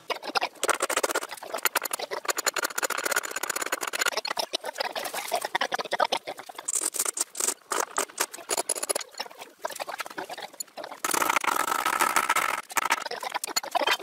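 Rapid, irregular scratching and clicking of hands and a tool working inside a plastic washing-machine tub, with denser stretches near the start and about two-thirds of the way in.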